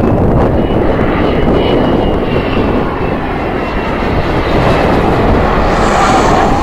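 Airplane engine noise: a loud, steady rush with a faint high whine running through it, growing brighter near the end.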